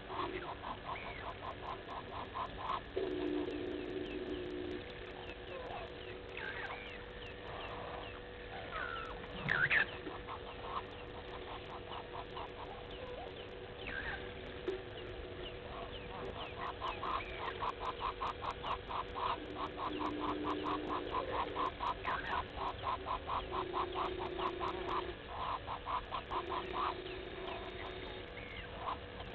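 Wild animal chorus: long trains of rapid, evenly repeated call notes, about eight a second, starting and stopping every few seconds. Scattered short bird chirps and a faint steady hum run underneath.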